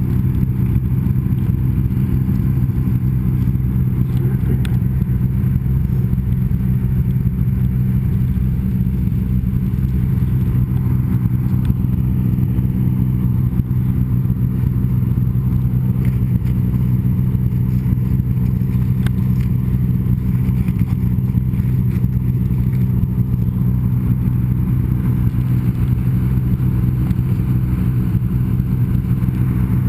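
Snowmobile engine running at a steady speed, a constant low drone with no revving up or down.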